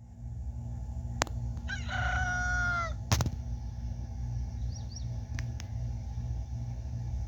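A rooster crowing once, a single drawn-out call about two seconds in that drops in pitch at its end, over a steady low rumble with a couple of sharp clicks.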